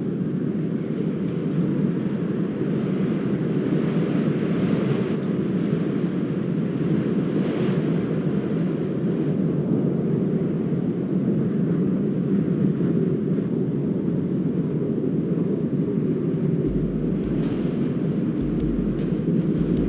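A steady low rumbling noise, with a few sharp clicks and low thumps in the last few seconds.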